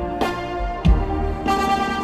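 Drum and bugle corps playing live: brass holding full chords, punctuated by three accented percussion hits.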